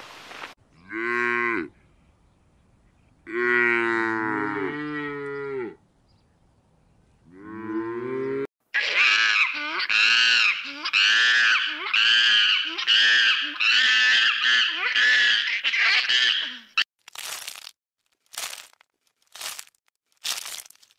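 A cow mooing three times, low and drawn out, the middle moo the longest. About nine seconds in, a run of high-pitched animal calls starts, about two a second for some eight seconds, and near the end come a few short crunching clicks.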